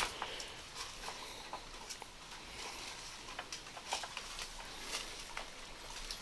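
Footsteps crackling over dry leaf litter and twigs, with scattered soft clicks and rustles over a faint steady hiss.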